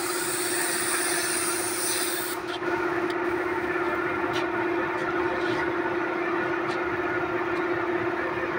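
Compressed-air paint spray gun hissing as it sprays, then cutting off abruptly about two and a half seconds in. Under it an air compressor runs with a steady hum, with a few light clicks after the spraying stops.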